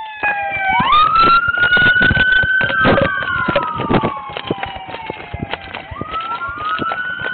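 Police car siren wailing, its pitch rising about a second in, sliding slowly down, then rising again near the end. Frequent knocks and rubs from a body-worn camera jostled as its wearer hurries along.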